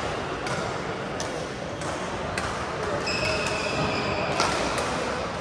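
Badminton rally: sharp racket-on-shuttlecock hits every half second or so. A high shoe squeak on the court floor runs for about a second from three seconds in, over a steady murmur of voices in the hall.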